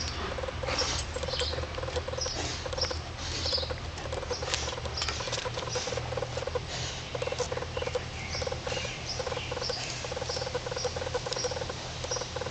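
A Central Asian shepherd bitch shifting and scratching in the loose dirt of the den she dug to whelp in: a run of short, irregular scratching and scrabbling sounds.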